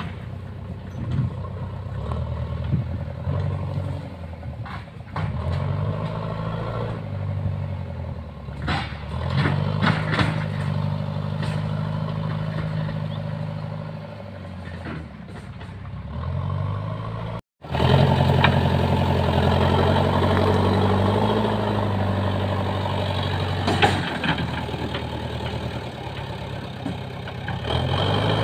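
JCB 3DX backhoe loader's diesel engine working under load, its pitch rising and falling again and again as the front bucket pushes and levels soil, with a few sharp knocks. The sound drops out for an instant about two-thirds of the way through.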